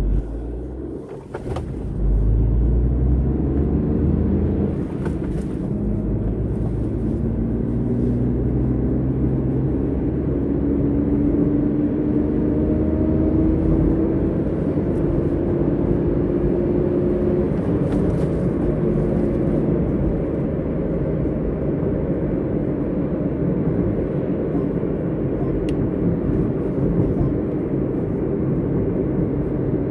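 Road vehicle on the move: steady engine and road rumble that gets louder about two seconds in, with the engine note rising slowly over several seconds in the middle as it picks up speed.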